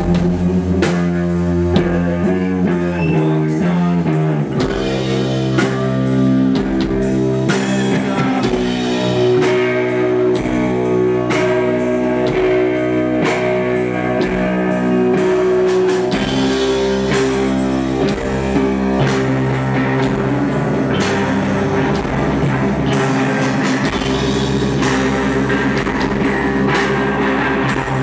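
Rock band playing live: electric guitar, bass and drum kit. A descending run of notes over the first four seconds or so, then sustained heavy chords driven by the drums.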